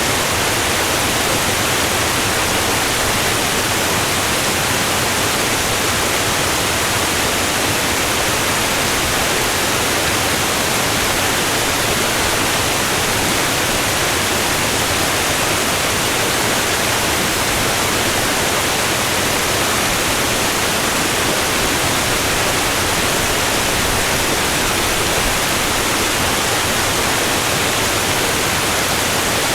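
Niagara Falls: the falling water makes a loud, unbroken rushing noise that holds the same level throughout.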